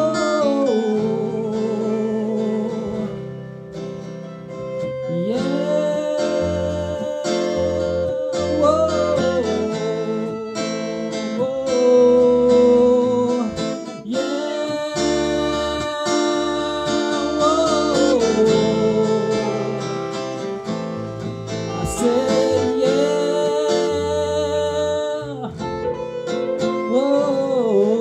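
Amateur band playing a song: acoustic guitar strumming, a lead guitar and a man singing. The singing is flat and the lead guitar is in the wrong key.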